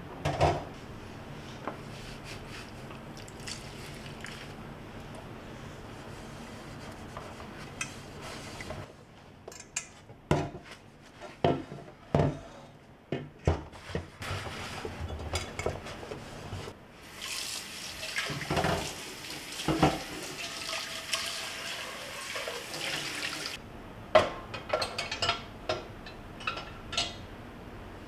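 An enamel cooking pot washed by hand in a stainless steel kitchen sink: knocks and clatters of the pot against the sink, scrubbing, and the tap running for several seconds about two thirds of the way in. Near the end come more clatters as the pot is set in a wire dish rack.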